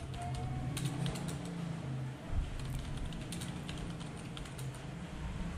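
Typing on a computer keyboard: quick, irregular key clicks over a low steady hum, with one dull thump a little over two seconds in.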